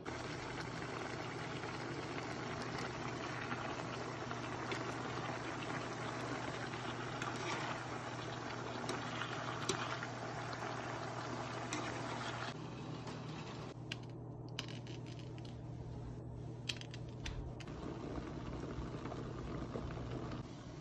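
Chicken pieces sizzling in their juices in a frying pan while chopsticks stir them. About twelve seconds in, this gives way to a pot of white radish chunks bubbling at the boil, with scattered small clicks. A steady low hum runs under both.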